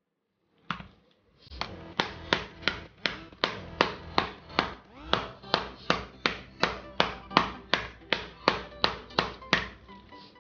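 A small mallet knocking the glued plastic case of a laptop power adapter to crack the seam open. There is one knock about a second in, then a steady run of sharp taps at two to three a second.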